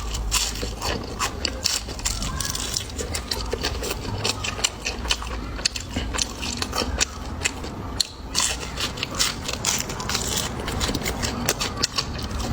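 Close-miked crunchy chewing of crisp food: a dense, irregular run of crackling crunches.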